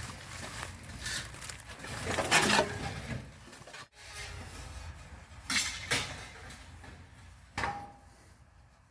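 Scrap metal being handled: irregular knocks and rattles of loose metal parts, with a few sharper clanks.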